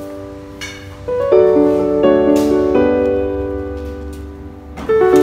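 Background piano music: slow held chords, with new chords struck about a second in and again near the end.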